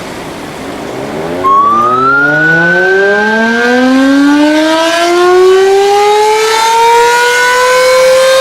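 The Plengkung Gading siren of the Yogyakarta Kraton winding up, one long tone rising steadily in pitch, faint at first and loud from about a second and a half in. It is sounded to mark the moment of the Indonesian independence proclamation.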